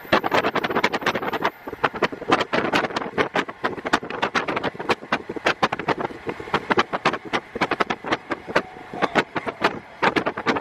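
KiHa 48 diesel railcar under way, its Cummins DMF14HZ diesel engine and running gear heard through an open window, with wind battering the microphone in rapid, irregular crackles that dominate the sound.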